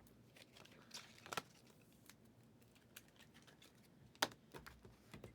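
Faint, scattered clicks and taps over quiet room tone, the sharpest about a second in and again a little after four seconds.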